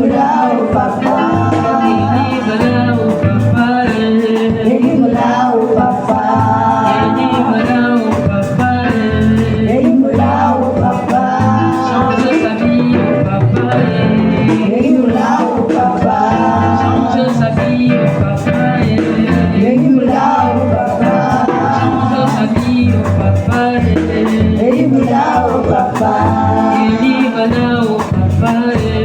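Worship song: voices singing a chorus over a band accompaniment with drums and percussion.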